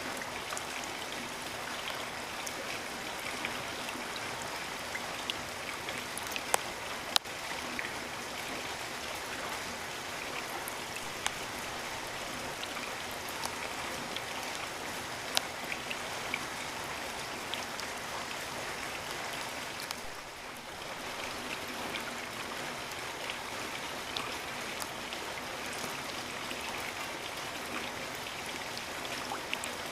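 Steady rain falling: an even hiss with scattered sharp drip and drop hits, a few of them louder. It eases slightly for a moment about twenty seconds in.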